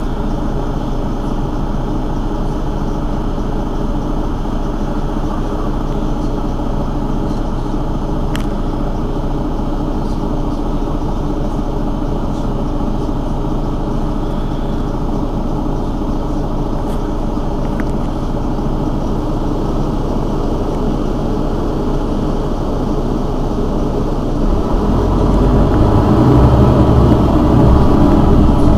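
Mercedes-Benz Citaro city bus idling at a stop, a steady diesel rumble with a faint steady tone. Near the end the low rumble grows clearly louder and heavier.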